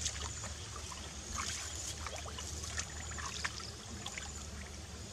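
Hands groping and sloshing in shallow muddy water, with small scattered splashes and trickles over a steady low rumble.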